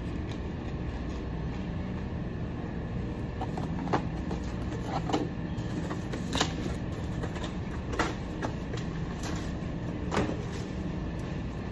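Cardboard boxes and packaged products knocking and thudding as they are handled and stocked on store shelves, several sharp knocks a second or two apart over a steady low background hum; the last, about ten seconds in, as a cardboard box is tossed onto a pallet.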